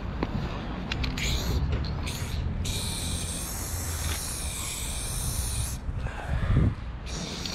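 Aerosol spray paint can hissing: two short bursts, then one steady spray lasting about three seconds. A low rumble runs underneath, and a single dull knock comes near the end.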